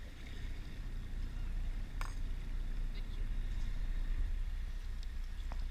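Sportfishing boat's engine idling as a steady low rumble, with a sharp click about two seconds in and a fainter one near the end.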